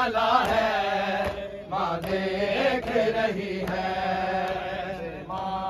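Men singing an Urdu nauha, a Muharram lament, in a drawn-out chant-like melody, with crowd voices joining in.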